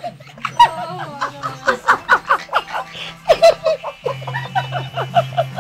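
People laughing and giggling in quick repeated bursts, with a low steady hum underneath.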